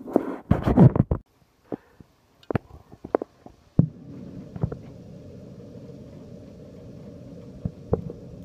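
Loud handling knocks and rustling, then a few sharp clicks; a bit under four seconds in, after one louder click, the steady hiss of a heavy rain shower comes up and keeps on, with an odd knock on top.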